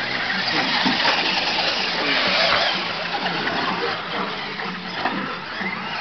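Radio-controlled model monster trucks racing on a dirt track, their motors rising and falling in pitch over a steady rushing noise.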